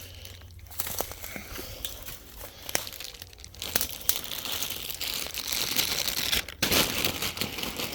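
Dry bamboo leaves and brush crackling and rustling as someone moves through the thicket, busier and louder in the second half.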